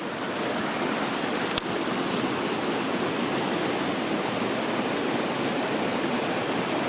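Babbling brook: a creek's water rushing steadily, with a single sharp click about one and a half seconds in.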